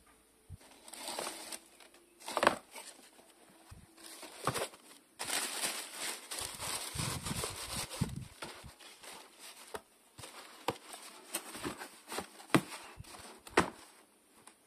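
White wrapping paper rustling and crinkling as it is folded inside a cardboard shoebox, with a few sharp knocks of cardboard being handled. The box lid is shut near the end.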